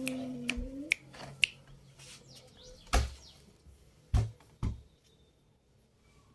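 A short low vocal sound in the first second, then a few sharp clicks and three soft thumps as a hand plays with a cat lying on a rug.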